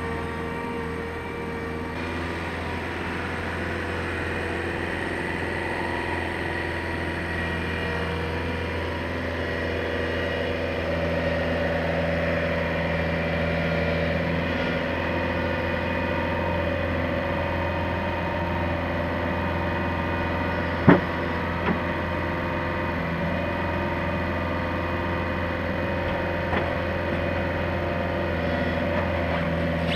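Bobcat Toolcat 5600 utility vehicle's diesel engine running steadily while it drives up and lifts a log onto a log wagon. A single sharp knock sounds about two-thirds of the way through, then a smaller one, as wood meets the load.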